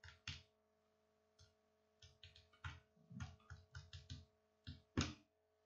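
Keys tapped in a quick, irregular run of about fifteen short clicks, some with a dull knock, as numbers are keyed into a calculator.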